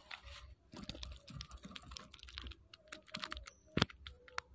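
Irregular clicks, taps and rustles as a freshly landed small mullet is swung in on the line and grabbed by hand for unhooking, the fish flapping against hand and line, with one sharper knock a little before the end.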